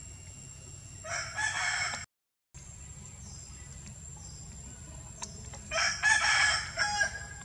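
A rooster crowing twice: one crow about a second in, cut off abruptly by a short gap in the audio, and a second, louder crow around six seconds in.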